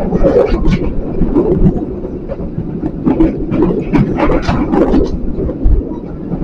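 Local passenger train running on the rails: a steady low rumble with irregular clattering and rattling from the wheels and carriages.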